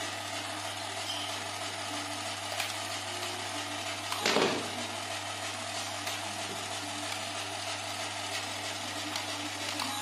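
Small DC motors wired to a toy RC receiver board, whirring steadily as the transmitter's controls are worked. A brief louder buzz comes about four seconds in.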